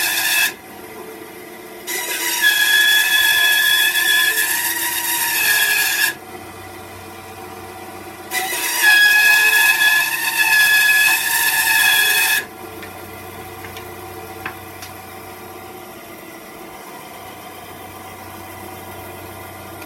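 Bandsaw cutting a thick piece of ash and spalted maple: two loud cuts of about four seconds each with a high whine as the blade goes through the wood, plus a brief one at the very start. Between and after the cuts the saw runs freely and much more quietly.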